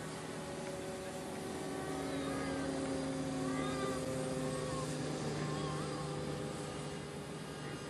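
The 90 mm FMS electric ducted fan of a Black Horse Proctor RC jet trainer gives a steady whine as the model flies overhead. A few short, wavering high calls sound in the middle.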